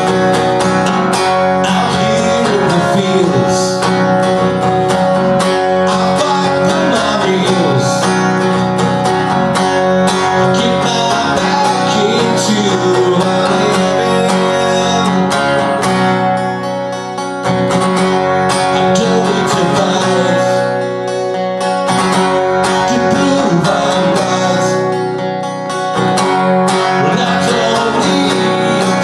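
Acoustic guitar strummed in a continuous run of chords, easing off briefly twice in the second half.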